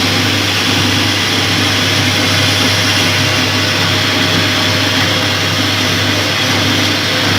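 Metal lathe running steadily, its motor giving a constant hum under an even mechanical whir.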